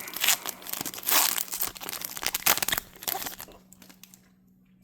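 Plastic packaging of a Pokémon booster bundle being crinkled and torn open, in a run of crackling bursts that stops about three and a half seconds in.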